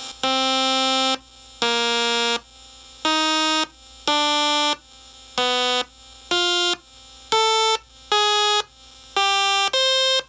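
Electronic train-horn sound generator (a CVP Products oscillator board) through an amplified speaker, sounding about ten short, steady, harsh buzzing tones one after another, each at a different pitch as each toggle switch brings in a different oscillator. A low hum runs underneath.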